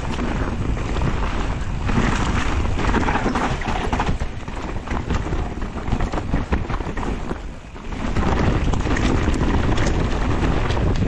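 Mountain bike descending a wet trail at speed: wind buffeting the microphone over tyre noise and rattling from the bike, with many sharp knocks. The noise drops briefly about seven and a half seconds in.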